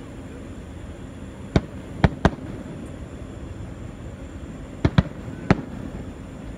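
Fireworks going off: six sharp bangs in two quick groups of three, the first group about a second and a half in and the second about five seconds in, over a steady low background rumble.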